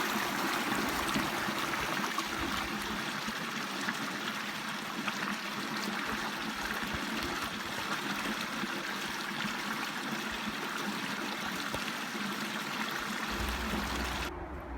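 Running water of a woodland stream, a steady rushing that drops away abruptly near the end.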